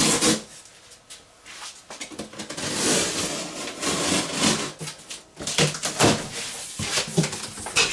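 A utility knife slitting the packing tape along a large cardboard box, heard as long rasping strokes, followed by clicks and scrapes of cardboard as the flaps are pulled open near the end.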